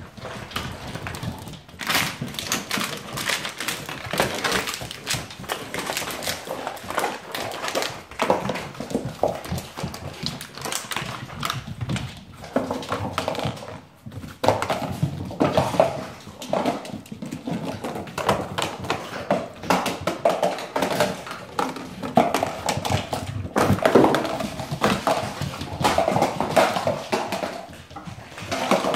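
Giant Schnauzer puppies playing: puppy growls and yaps over a steady patter of claws and paws clicking and scrabbling on hard flooring, busier and louder in the second half.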